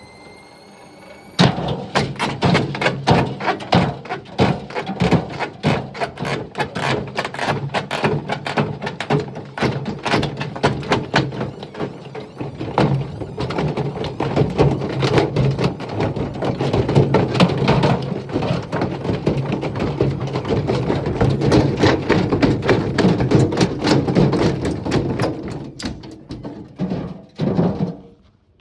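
A brick banging and knocking hard inside a Haier washing machine's turning drum, a rapid irregular clatter of impacts over a steady low hum. It starts suddenly after a high steady tone of about a second and a half, and dies away near the end.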